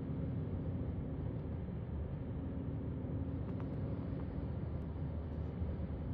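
Road noise from inside a moving car: a steady low rumble of tyres and engine at highway speed, with a few faint clicks in the middle.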